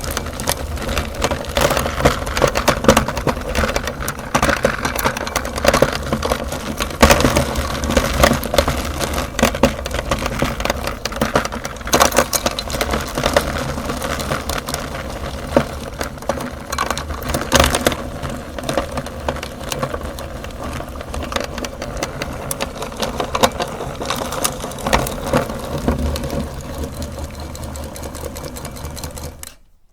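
Meat grinder's motor running steadily while its auger crushes hard chocolate umbrella candies, with many sharp cracks and crunches over the hum. It stops shortly before the end.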